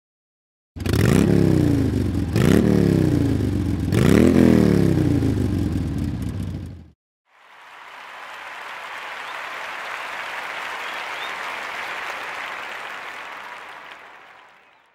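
An engine revved in three sharp blips about a second and a half apart, each rising quickly in pitch and then falling away. After a short gap comes a long rush of noise that swells and fades out.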